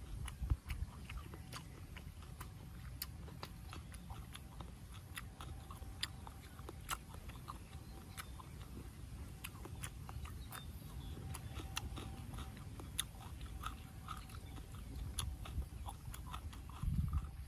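A person chewing food close to the microphone, with many small sharp crunches at an irregular pace, and a brief low rumble near the end.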